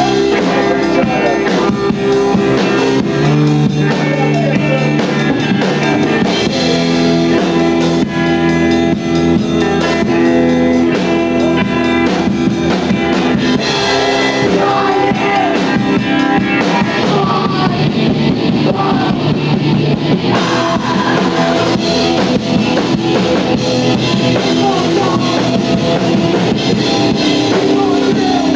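Live rock band playing a song, with electric guitar and drum kit over a continuous dense wall of sound.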